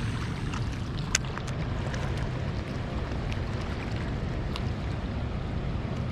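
Steady rush of water pouring through a dam spillway, with a sharp click about a second in.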